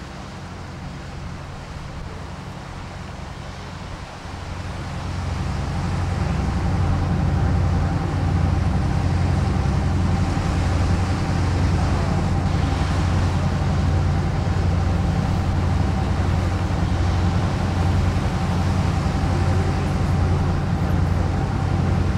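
Steady low machine drone, the kind of engine rumble laid under a ship animation; it grows louder about four to six seconds in, then holds even. A faint steady high tone runs over it from about six seconds in.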